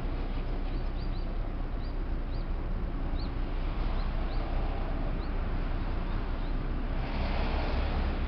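Steady low outdoor rumble with a brief rush of hiss about seven seconds in, and a scatter of short, high bird chirps.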